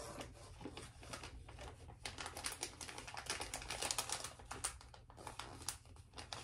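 Paper and packaging rustling and crinkling as they are handled: an irregular run of small crackles and ticks, busiest in the middle.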